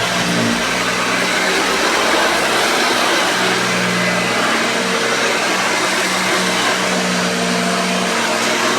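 Hoover Junior 1334A upright vacuum cleaner running steadily, its motor giving an even whir with a steady hum underneath; the motor runs well.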